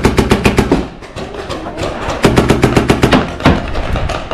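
Paintball markers firing in rapid volleys of about ten shots a second. One burst stops about a second in, and another runs from about two seconds in, with scattered shots near the end.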